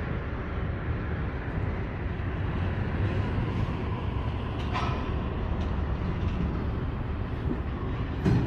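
Freight train rolling past with a steady low rumble of wheels on rail. There is a short sharp ringing sound about five seconds in and a brief knock near the end.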